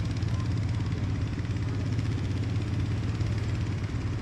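Small engine running steadily with a low, even drone.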